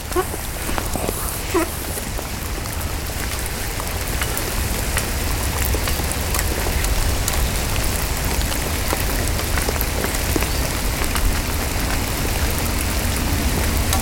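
Heavy rain falling steadily on a pond and pattering on the plastic bag covering the camera: a dense hiss full of sharp drop taps over a low rumble, growing a little louder a few seconds in.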